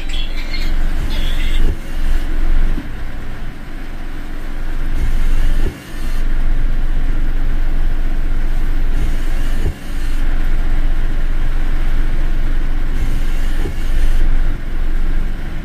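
A car driving along the road: a steady low rumble of engine and tyre noise, dropping away briefly twice.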